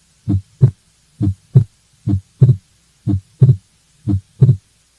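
Stethoscope recording of a normal heart: five lub-dub beats about a second apart, the first and second heart sounds close together with a longer pause in diastole. In the first beats the second sound is single, during exhalation; in the later beats, with inspiration, it splits into two closely spaced thuds. This is physiologic splitting of S2, a normal finding.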